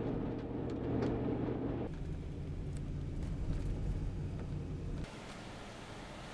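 A vehicle engine running with a steady hum. The sound shifts to a lower hum about two seconds in and cuts off suddenly about five seconds in, leaving a quieter hiss.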